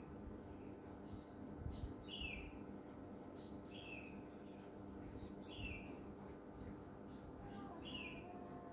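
Faint bird chirps: short, high, falling notes repeated every second or so over low background noise.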